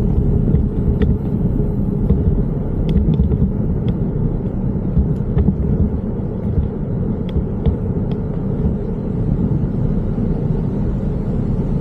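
Steady low rumble of wind on the microphone and tyres on the road during a downhill bicycle ride, with a few faint clicks.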